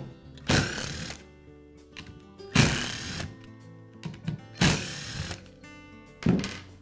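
Cordless drill running in four short bursts, each under a second, backing screws out of an angle grinder's motor housing, over background music.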